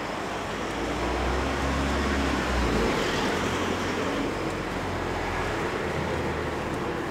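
Street traffic noise: vehicles passing, with a low rumble that swells about a second in and eases after about three seconds.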